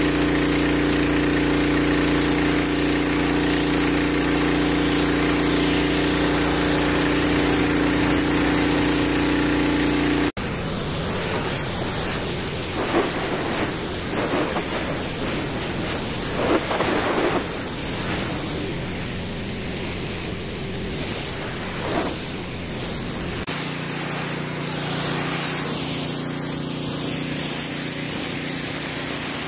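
Gas-engine pressure washer running, its engine humming steadily under the hiss of the water jet as it blasts the boat's fiberglass hull and outdrive. About ten seconds in, the sound changes abruptly to mostly spray hiss with irregular louder splatters as the jet hits the outdrive. The steady engine hum returns near the end.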